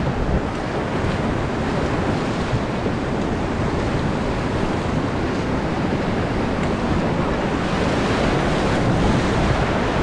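Steady rush of white water from river rapids around an inflatable raft, with wind on the microphone.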